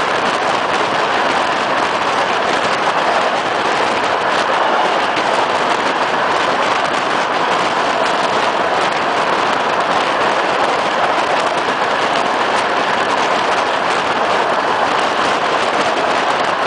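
Passenger train running at speed, heard at an open carriage window: a loud, steady rush of wind and wheel noise on the rails.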